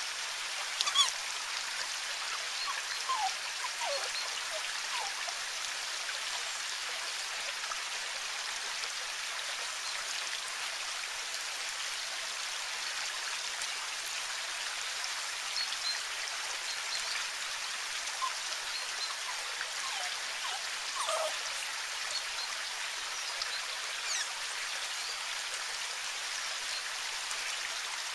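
Steady hiss of water, with a few brief, faint chirps about a second in, around three to four seconds in, and again around twenty-one seconds in.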